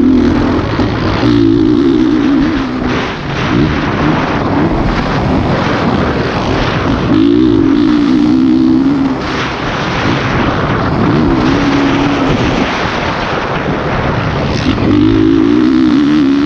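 Motocross dirt bike engine revving hard, pulling through the gears on the straights and dropping off between them, several times over, with heavy wind noise on the microphone.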